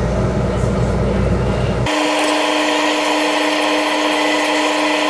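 A steady machine hum, like a small electric motor running. About two seconds in it changes abruptly from a deep rumble to a higher, steady hum with a clear pitch.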